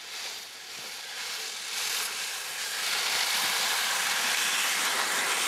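Skis sliding over packed snow: a steady hiss that gets louder about three seconds in.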